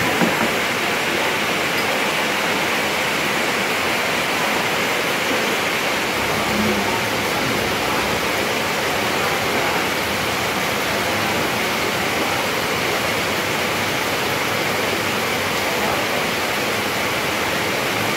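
Light rain falling: a steady, even hiss.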